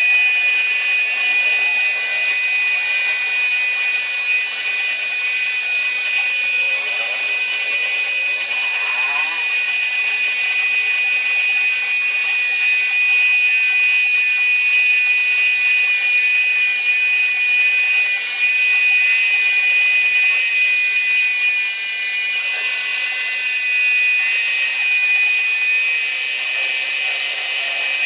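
CNC router spindle running with a steady high-pitched whine as its bit cuts into wood.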